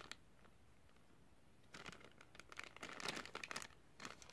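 Clear plastic parts bag crinkling as it is handled, in short irregular bursts that start after about a second and a half of near quiet.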